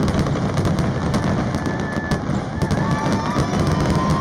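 Fireworks display with many shells bursting at once: dense, rapid bangs and crackling over a continuous rumble. High whistling tones join in about two and a half seconds in.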